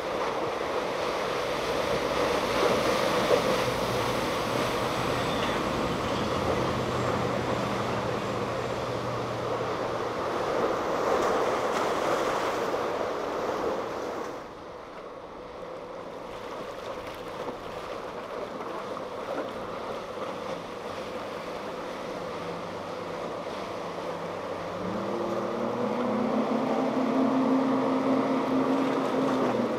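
Surf and wake washing at an inlet jetty, with wind on the microphone and the steady drone of a large sportfishing yacht's engines. About halfway through, the sound drops suddenly to a quieter water wash. Near the end a single outboard engine's note rises and grows louder as a center console boat powers past.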